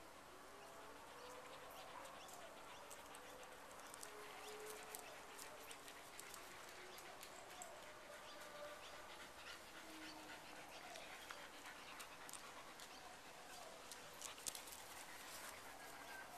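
Faint dog sounds from dogs at play: short gliding whines, with scattered light clicks and scuffles.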